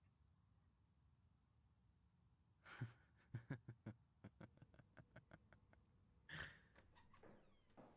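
Near silence, then a person's faint breath sounds: a breathy exhale about two and a half seconds in, a string of short, quick, uneven pulses for about three seconds, and another breathy exhale a little after six seconds.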